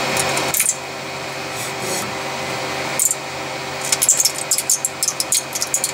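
Thin metal spatula scraping and prying under a 3D print that is stuck firmly to the printer's build plate. There are short scratches about half a second and three seconds in, then a quick run of scratchy strokes near the end, over a steady hum.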